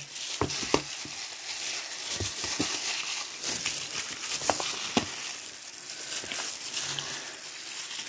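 Hands squishing and turning raw chicken thighs in teriyaki sauce to work in the marinade. The sound is irregular wet squelches and small clicks.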